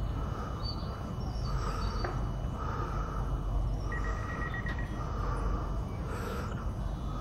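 Steady low hum and rumble of an electric multiple unit standing at an underground station platform. A soft electronic chirp repeats about once a second, and a short higher beep sounds about four seconds in.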